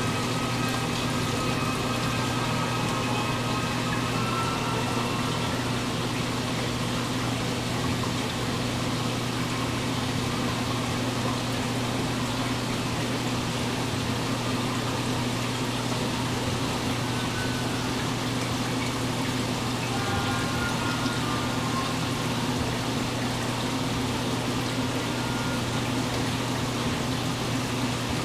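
Aquarium filter pump running steadily, with a constant low hum under the rushing and bubbling of its water return jet.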